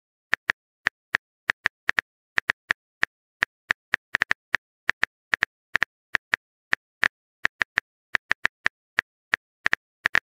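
Phone on-screen keyboard typing clicks: short, sharp, identical taps at an uneven pace of about three a second, some in quick pairs, the sound of a text message being typed.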